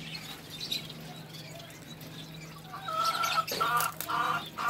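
Aviary finches chirping faintly, with louder, lower repeated calls from about three seconds in.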